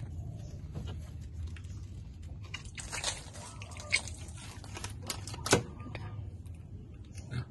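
Rustling and handling noises from hands moving close to the microphone, with a few sharp clicks or knocks, the loudest about five and a half seconds in, over a low steady hum.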